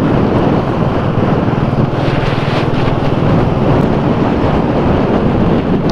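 Wind rushing over the microphone on a Royal Enfield Bullet motorcycle cruising at about 50–60 km/h, with the single-cylinder engine running steadily underneath.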